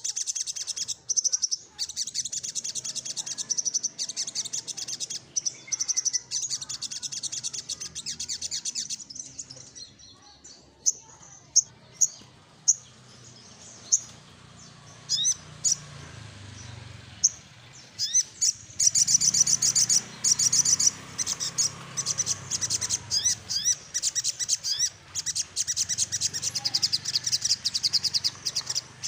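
Male sunbird singing a fast, high rolling trill of rapidly repeated notes, breaking off about a third of the way in for scattered single chirps, then trilling again for the last third.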